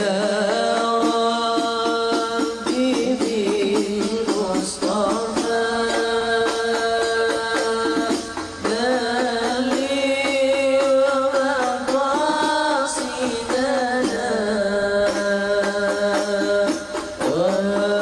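Background music: a melodic line of long held notes that slide up into each new pitch, with a steady beat underneath.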